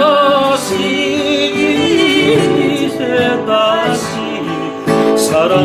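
A man and a woman singing a duet in long held notes with vibrato, accompanied by two strummed acoustic guitars, one of them brand new.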